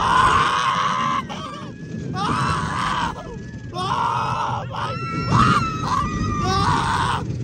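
Roller coaster riders screaming: about five long, high screams one after another, over the low rumble of the ride.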